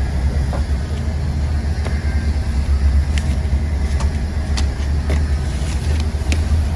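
A steady low rumble, with a few light clicks and knocks scattered through it.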